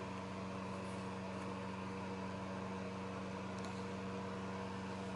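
A steady, unchanging low machine hum.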